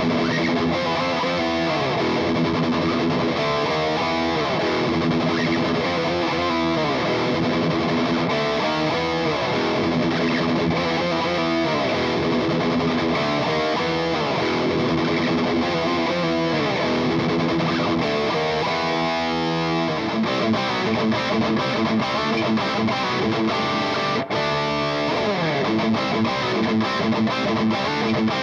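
Electric guitar (EVH Stripe Series) played with heavy distortion through a PRS MT15 amp, boosted by an Xotic BB Preamp overdrive, dialled in for an 80s hard-rock tone. It plays riffs and lead lines with pitch slides, a fast burst of repeated notes shortly before the two-thirds mark, and choppier, stop-start riffing after that.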